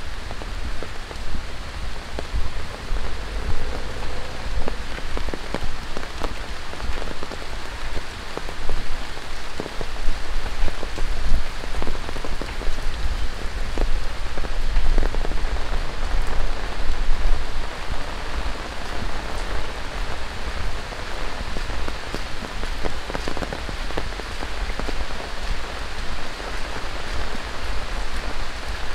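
Steady rain falling on surfaces, with many individual drops striking close by and a low rumble underneath.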